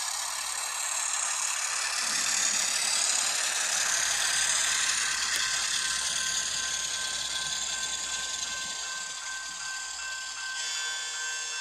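N-scale model freight train rolling past on its track: a steady, high rattle of small metal wheels on rail, along with the diesel engine sound of the Alco S-2 locomotives' DCC sound decoders. Near the end a set of steady ringing tones comes in.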